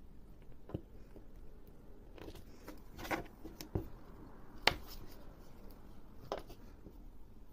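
Hand embroidery: thread drawn through the canvas of a bag and the fabric handled, heard as a few scattered soft rustles and scratchy clicks, with the sharpest click a little past halfway.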